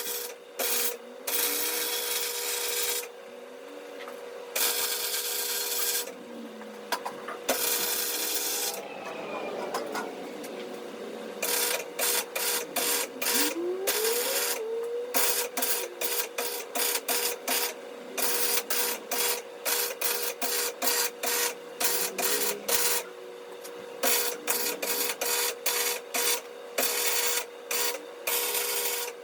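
Electric arc welding on a steel car frame, crackling in several long beads of one to two seconds each. From about halfway it turns into a quick run of short bursts, stitch-welding in pulses. A steady hum runs underneath.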